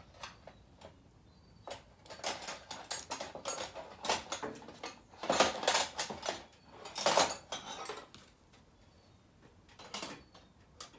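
Small metal hand tools and fasteners (spanners, nuts, screws) clinking and rattling against each other and a steel cabinet panel while being handled. The clinks come in several clusters, loudest about five and seven seconds in.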